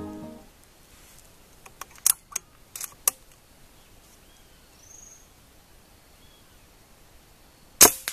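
Background music fading out, then a quiet stretch of outdoor ambience with a quick run of sharp clicks about two to three seconds in and one louder click near the end. A few faint, short, high bird chirps come midway.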